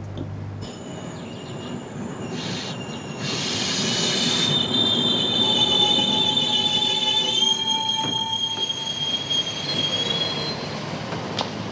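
Red Uerdingen railbus running into the station and braking to a stop, its brakes and wheels giving a high-pitched squeal in several steady tones over the rumble of the train. The squeal is loudest in the middle and fades out near the end.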